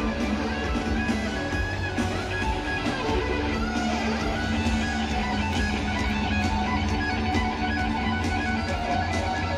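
Rock band playing live, electric guitar to the fore over drums and bass, heard through the PA from the crowd.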